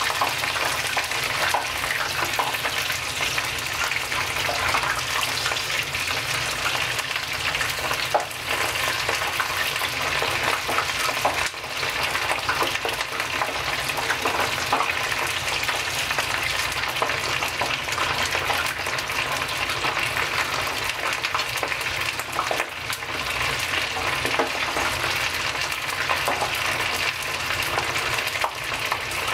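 Karaage (marinated chicken pieces) deep-frying in a deep pan of oil on a gas burner: a steady, dense crackling sizzle as the oil foams up around the chicken.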